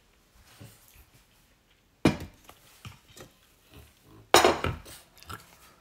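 Enamel pot and lid being handled at the table: two loud clanks with a short ring, about two seconds in and again past four seconds, with lighter clinks between.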